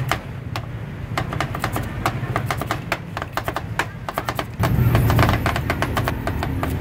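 Two metal spatulas chopping and tapping ice cream against a frozen steel cold plate for rolled ice cream: a fast, irregular run of sharp metal clicks. A low background rumble swells about two-thirds of the way in.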